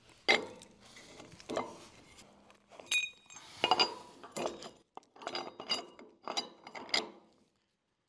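Steel axle bolt with a washer being slid through a brush hog tailwheel's fork and new hub: a string of light metallic clinks and scrapes, a few of them ringing briefly, that stops about a second before the end.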